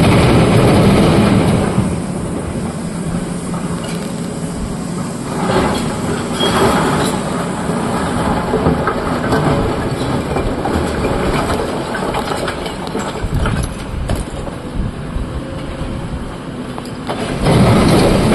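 Heavy excavator diesel engine running under load while broken rock clatters and crashes into a steel dump-truck bed, with loud bursts of falling rock at the start, around six to seven seconds in, and near the end.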